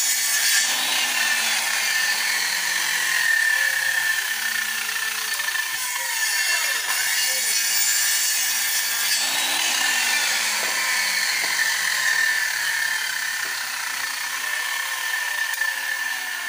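Handheld electric circular saw running and cutting through wooden planks, a continuous high whine and rasp of blade in timber. The whine slides down in pitch twice as the blade works through the wood.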